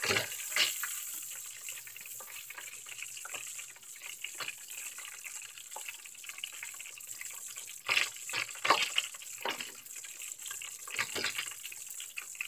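Battered fish deep-frying in a pan of hot oil: a steady sizzle with small crackles. About eight to ten seconds in come a few louder clinks and rustles as pieces are lifted out with a metal slotted spatula onto paper towels.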